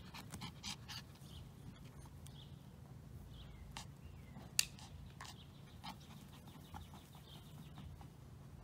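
Faint outdoor ambience: a steady low hum with scattered soft clicks and a few faint, short chirps, and one sharper click about four and a half seconds in.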